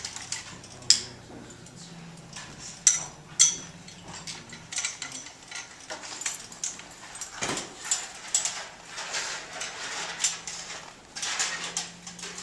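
Metal clinks and knocks from a tripod light stand and lamp head being handled and tightened, a string of sharp clicks with the loudest about one and three seconds in.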